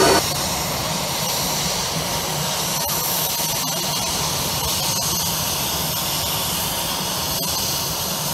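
Hkp 14 (NH90) military helicopter's turbine engines running steadily on the ground, a constant rushing whine.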